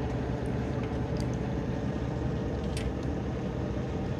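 Small engine running steadily with an even low hum, and a few faint ticks over it.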